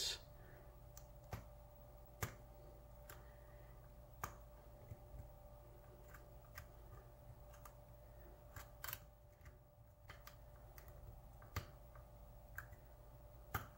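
Faint, irregular clicks of a hook pick working the pin stack of a pin-tumbler lock cylinder under a tension wrench during single-pin picking, a light tick every second or so as pins are lifted and set.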